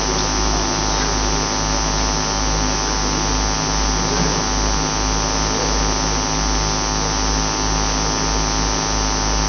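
A steady electrical hum with a buzzy stack of overtones, unchanging in level throughout.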